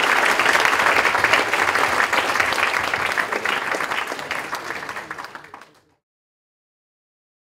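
Audience applauding, the clapping fading out about five and a half seconds in.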